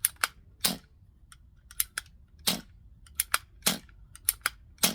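Daisy 1200 CO2 BB pistol fired again and again to vent its remaining CO2: sharp pops about once a second, with lighter clicks of the action between them.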